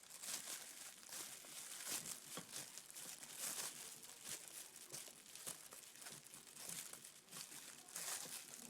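Faint, irregular crinkling and crackling rustle, the kind of noise made by handling things close to the microphone. No motor is running.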